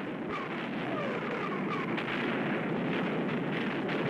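Artillery fire: a continuous din of gun reports and blasts, with several short falling whistles in the first two seconds.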